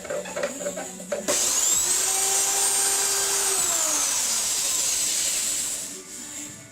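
Electric woodworking power tool starting abruptly about a second in and running with a steady whine. The pitch then falls away as the motor slows, and a rough hiss carries on until it stops near the end.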